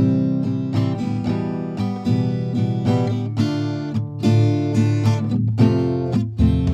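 Background music: acoustic guitar playing a run of quickly plucked and strummed notes and chords.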